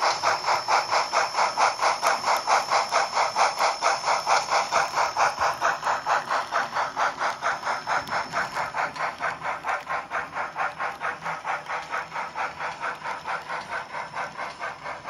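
Simulated steam exhaust from a sound-equipped H0n3 Colorado & Southern 2-6-0 Mogul model locomotive: a steady chuff of about five beats a second with a hiss, slowly fading as the train moves away.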